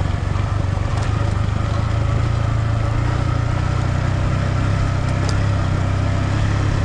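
Vehicle engine running steadily under way, a low hum that rises slightly about two seconds in.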